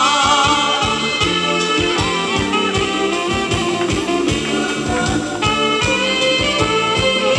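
Thai ramwong band music, live and amplified: an instrumental passage with a melody over a steady drum beat.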